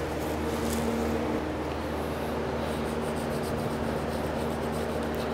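Steady machine hum with a few fixed tones, unchanging throughout.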